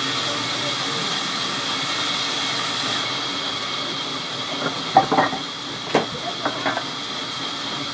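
Sawmill machinery running with a steady hiss and a high whine. A cluster of sharp knocks comes about five seconds in, typical of wood pieces being handled.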